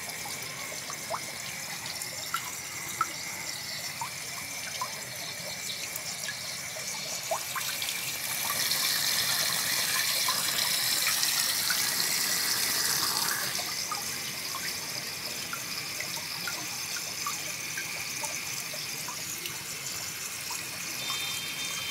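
Water running steadily with scattered small drips, swelling to a louder, hissing rush from about eight to thirteen seconds in.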